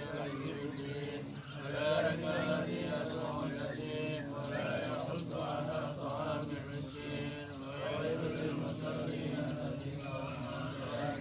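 A group of men reciting Islamic prayers aloud together, many voices overlapping in a continuous Arabic chant.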